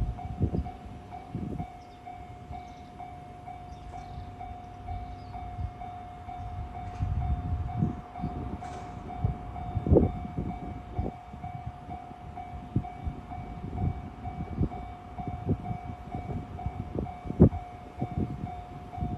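Level-crossing warning bell ringing steadily in a fast repeating pattern while a train passes over the crossing. The train's wheels knock irregularly over the rail joints, thickest through the middle and later part, with one sharp knock near the end.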